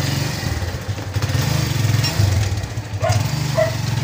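A small motorcycle-type engine running steadily, a low, uneven rumble.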